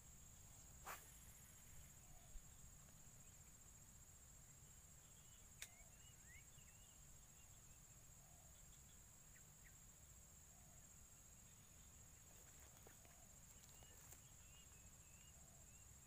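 Quiet swamp-edge ambience: a steady high-pitched insect trill, with a few faint bird chirps. There are two soft clicks, one about a second in and one near the middle.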